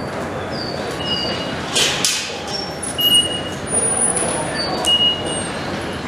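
Busy railway station platform ambience: a steady background din with short, high chirps now and then and a few brief hissing bursts.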